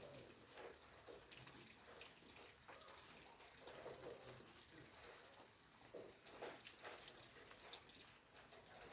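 Faint light rain: a soft steady hiss of water with many separate drops ticking, several a second.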